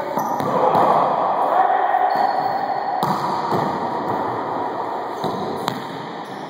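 A wallyball rally in an enclosed, echoing court: the ball is smacked by players' hands, with sharp hits about three seconds in and again near the end, over players' shouting.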